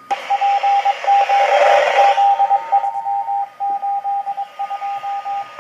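Fire-dispatch radio pager sounding a transmission: loud hissing static with a beeping tone pulsed in uneven short dashes, cutting off sharply near the end.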